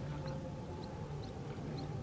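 Outdoor riverside ambience: a steady low hum, with small, short, high chirps repeating about twice a second.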